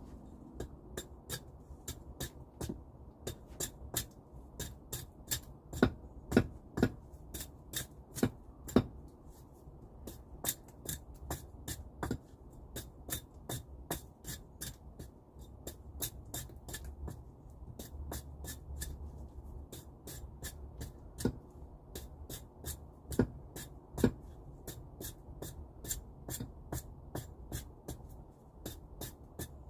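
A steady, rhythmic series of sharp wooden clicks or knocks, about three a second, a few of them much louder than the rest.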